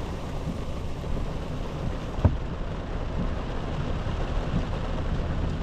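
Wind rumbling on the microphone over falling rain, a steady rush with scattered small ticks and one sharp tap a little past two seconds in.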